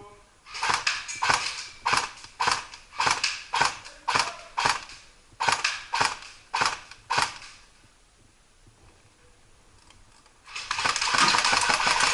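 Airsoft gun firing about a dozen single shots in quick, uneven succession, then a longer rapid burst of fire near the end after a short pause.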